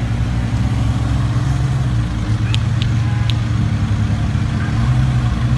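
Sports car engines running steadily at low speed as a Ferrari FF and then an Audi R8 creep past. Three short high chirps come about halfway through.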